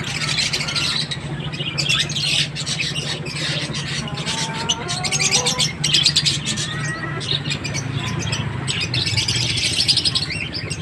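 Many caged parakeets and cockatiels chirping and chattering at once in a dense, continuous twitter, over a steady low hum.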